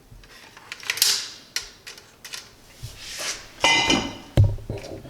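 Metal tools and parts being handled on a workbench: scattered clicks and taps, a short ringing metal clink a little before four seconds in, then a dull thump.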